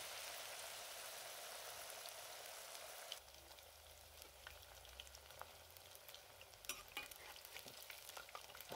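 Onion pakoras sizzling faintly as they deep-fry in hot oil. About three seconds in the sizzle drops away to a few faint ticks as a slotted spoon turns them in the pan.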